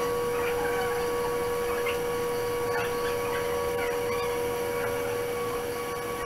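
A steady machine hum with a held tone, under faint scratching of a pencil drawing small squares on paper.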